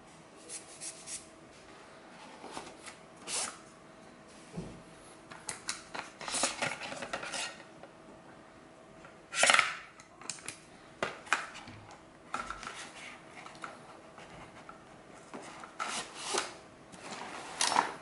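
Small tools and gadgets handled and put into a fabric tool bag's pockets: scattered clacks, taps and rustles of plastic and metal against the bag and its contents, the loudest clatter about halfway through.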